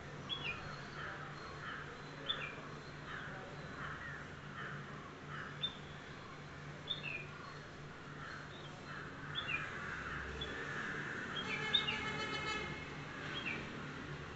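Bulbul calling: short, sharp, falling notes repeated every second or two over a steady background of small birds chirping. About twelve seconds in comes a harsher call with many overtones.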